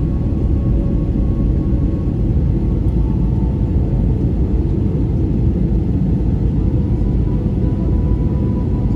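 Steady rumble of an airliner's engines and airflow heard from inside the cabin in flight, with a faint steady whine over it.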